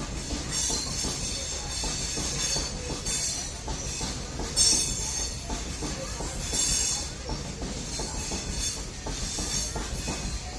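Train rolling slowly along the track: a steady low rumble under wheels that screech in repeated high-pitched squeals, the loudest about four and a half seconds in.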